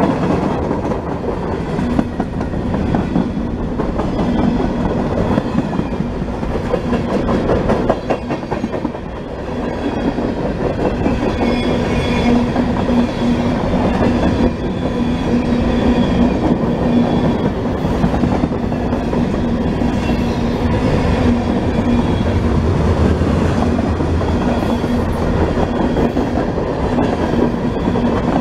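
Freight train cars rolling past close by: a steady rumble of wheels on rail with clacking over rail joints and a steady low hum.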